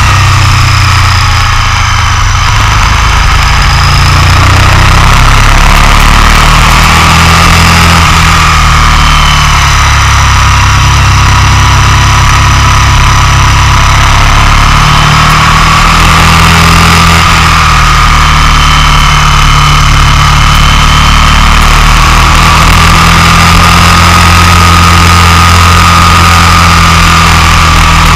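Onboard sound of a motorcycle at speed on a race track, the engine running steadily under load. Wind rushes over a camera mounted low by the front wheel, and the engine note drifts slightly up and down.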